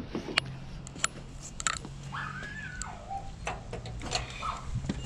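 Scattered sharp clicks and knocks of a door latch and handle being worked, with a short falling whine from an animal about two seconds in, over a low steady hum.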